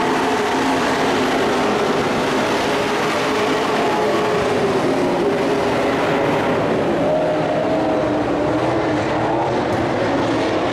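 Race truck engines running on a dirt oval track: a steady, loud drone with several engine notes that rise and fall slightly as the trucks circle.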